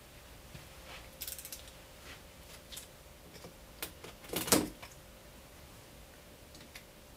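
Scattered clicks and scrapes of a large cardboard-and-foam shipping box being handled and opened, with one louder, longer scrape about four and a half seconds in. A faint steady hum runs underneath.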